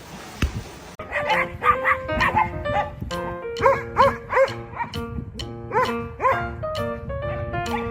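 Music with steady notes, over which a dog barks repeatedly in short barks that rise and fall in pitch. It starts suddenly about a second in, after faint noise and a few clicks.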